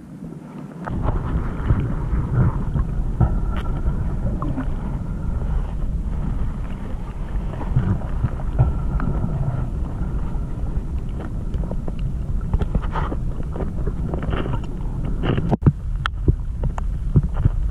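Steady low underwater rumble picked up by a camera held in the sea, with scattered clicks and scrapes as an octopus's suckered arms grip and rub against the camera. A few sharp ticks near the end.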